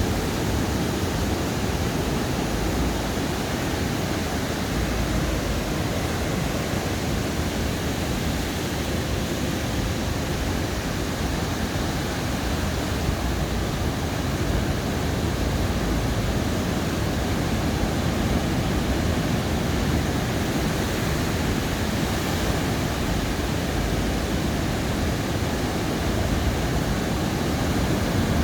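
Ocean surf breaking and washing up a sandy beach: a steady rushing noise that swells and eases slowly.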